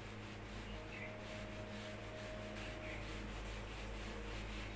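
A whiteboard eraser rubbing across the board in quick, repeated back-and-forth strokes, wiping off marker writing.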